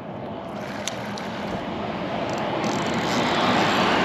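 A fuel tanker truck driving past on the bridge, its road noise growing steadily louder toward the end.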